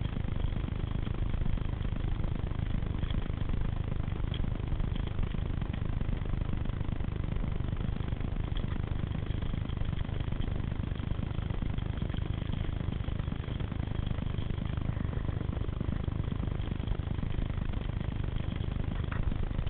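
Steady low rumble of wind and trail noise on the microphone of a camera moving along a dirt forest singletrack behind a child on a bike, with a few faint clicks.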